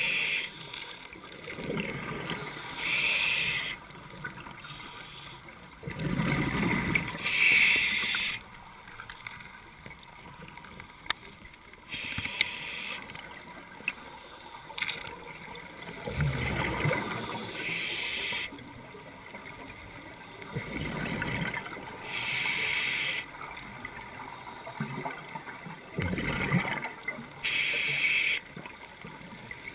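Scuba diver breathing underwater through a regulator: a hiss of inhaled air, then a gurgling rush of exhaled bubbles, one breath about every five seconds.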